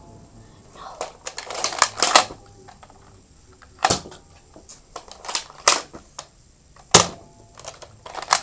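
A toy foam-dart blaster being cocked and fired: a series of sharp clicks and snaps at irregular intervals, several close together in the second second and single ones after.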